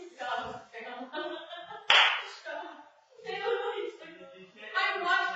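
Several people's voices, not clearly worded, heard through a home security camera's microphone, with a single sharp smack about two seconds in.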